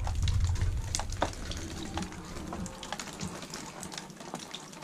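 Water dripping off a roof, scattered drops ticking irregularly, with a couple of sharper clicks about a second in. A low rumble fades out over the first few seconds.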